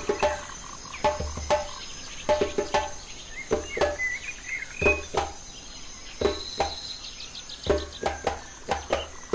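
Night-time nature soundscape: a steady high cricket trill under short croaking calls that repeat irregularly, two or three a second. A few brief bird chirps come in the middle.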